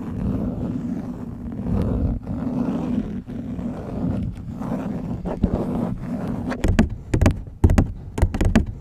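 Long fingernails scratching a phone case right at the microphone, a steady low scratchy rumble; about two-thirds of the way in it switches to quick nail taps, several a second.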